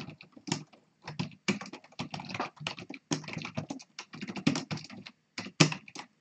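Typing on a computer keyboard: a quick run of keystrokes, broken by two short pauses, about a second in and again near five seconds.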